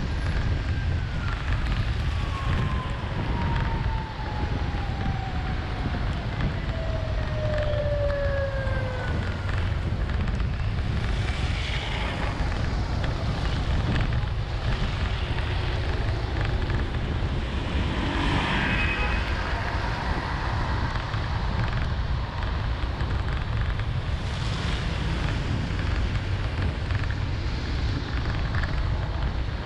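Steady low rumble and hiss of a vehicle driving through heavy rain on a waterlogged road. A long tone glides slowly downward over the first nine seconds, and brief louder swishes come about twelve and nineteen seconds in.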